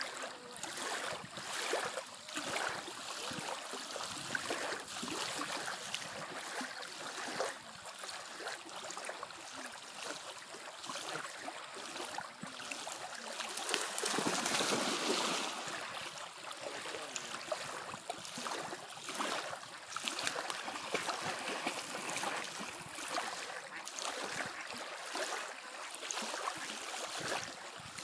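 Small lake waves lapping and splashing at the shore in an irregular, continuous wash, with a louder rushing stretch about halfway through.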